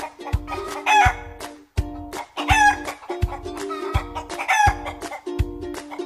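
Background music with a steady thudding beat, with chicken calls laid over it: clucking and crowing about three times.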